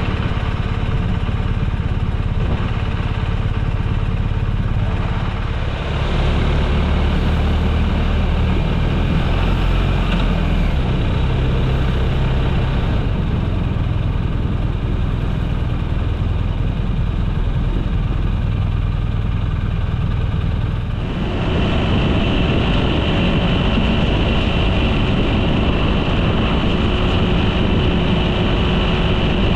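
Steady, loud vehicle noise, mostly deep, with no speech. Its character changes abruptly about six seconds in and again about twenty-one seconds in.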